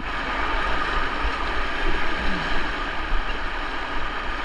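River Derwent in spate, its fast high water rushing steadily, with a low rumble underneath.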